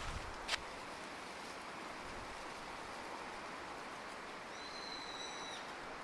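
Steady hiss of open-air woodland ambience, with a short click about half a second in and one high, steady whistle-like note lasting just over a second about four and a half seconds in.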